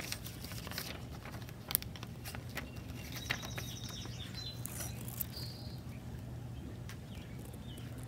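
Scattered clicks and rustles of a hand handling a plastic plant tag caught in bird netting, over a steady low hum. A few faint, short bird chirps come in from about three seconds in.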